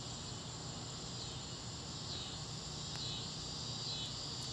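Steady chorus of crickets and other insects, a high trilling that pulses about once a second, with two faint sharp clicks near the end.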